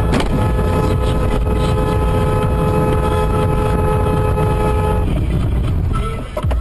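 Car horn held in one long blast of about five seconds, cutting off near the end, over the steady low rumble of engine and road noise inside a moving car.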